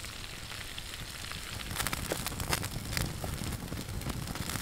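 Battered chicken nuggets deep-frying in a pan of hot oil over a wood campfire: a steady sizzle that gets louder about two seconds in, with many crackles and pops.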